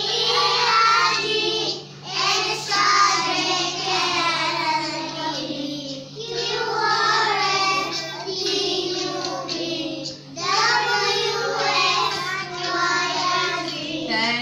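Young children singing a song together, in sung phrases with short breaks about two, six and ten seconds in.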